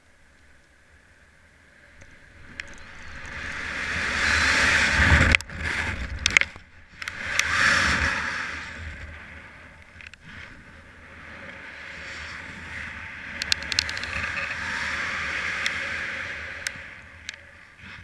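Wind rushing over a body-worn camera's microphone during a rope jump's free fall and swing. The rush swells to a peak about five seconds in, breaks up with a few knocks, surges again near eight seconds, then builds a second time during the swing, with light clicks near the end.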